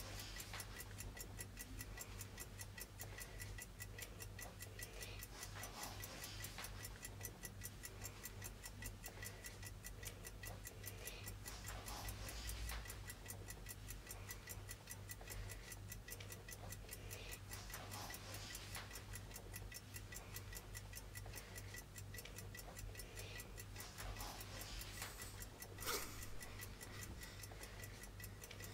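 Clock ticking steadily and evenly over a low, steady hum, with one sharper click near the end.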